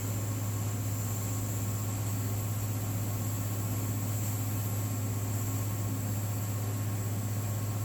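A steady low hum with a faint high whine above it, unchanging throughout, like a small motor or electrical device running.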